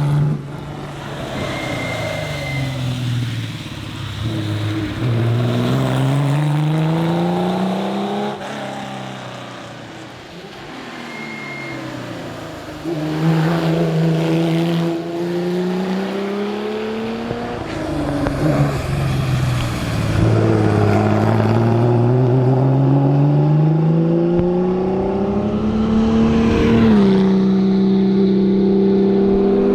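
Porsche 911 RSR's flat-six engine accelerating hard through the gears. The pitch climbs steeply in each gear and falls back at each upshift. The engine eases off about a third of the way through, then pulls hard again.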